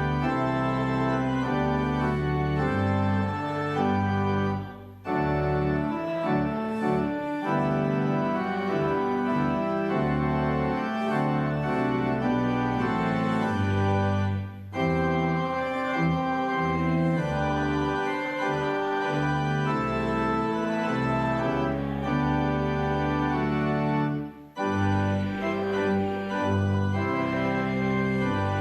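Organ playing a hymn in held chords, breaking off briefly between phrases about every ten seconds.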